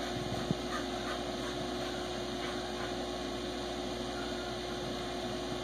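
Steady hum throughout, with faint scuffling of dogs moving on bedding and one soft knock about half a second in.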